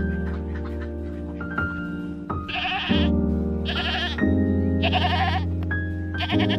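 An animal bleating four times, short quavering calls about a second apart, over background music with steady chords and mallet notes.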